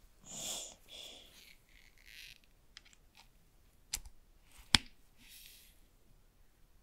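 Gloved hands handling AirPods Max headphones and their packaging. Soft paper rustles come first, then two sharp clicks about four and nearly five seconds in, the second much the loudest, as the earcup and its charging cable are handled.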